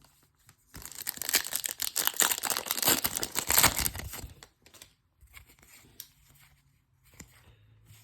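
A trading card pack's wrapper being torn open, a loud crackling rip lasting about four seconds, followed by quieter rustling and light clicks as the cards are handled.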